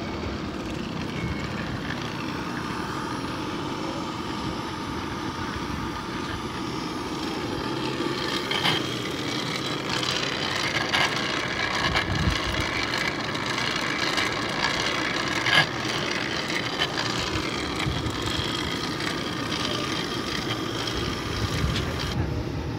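Hand-cranked cast-iron blower whirring steadily as it fans air into a charcoal fire, with a few light knocks.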